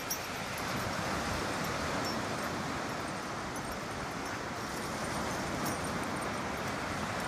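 Wind buffeting the microphone over a steady wash of surf breaking on the shore.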